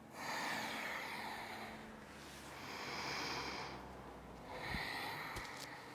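A woman breathing slowly and audibly close to the microphone, three long breaths in a row, while holding a seated forward fold.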